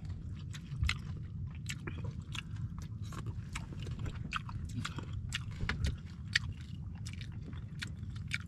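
A person chewing and biting crispy food close to the microphone, with a quick run of small crunches over a steady low rumble.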